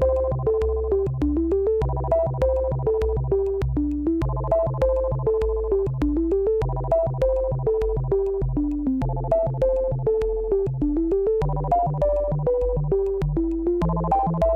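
Background electronic music: a synthesizer melody repeating in short phrases over a bass line and a steady beat.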